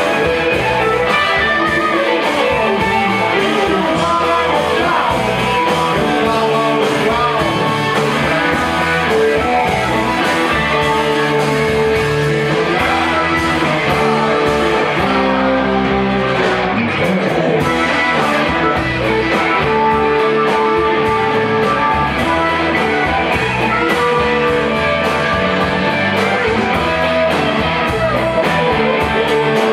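Live rock band playing: several electric guitars over drums and keyboard, in a steady groove with no break.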